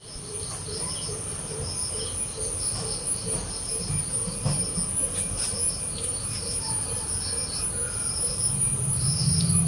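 Insects chirping in short repeated clusters over a steady high-pitched buzz, with a low rumble underneath that grows louder near the end.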